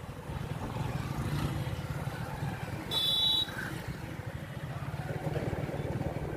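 Low, steady rumble of motor traffic, with a short high-pitched beep about three seconds in.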